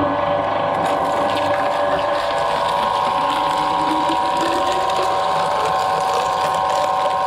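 Twin-shaft shredder running with a steady whine from its drive while its cutter shafts chew into a section of papaya tree trunk, with a dense crackling and crunching of the fibrous trunk being torn apart.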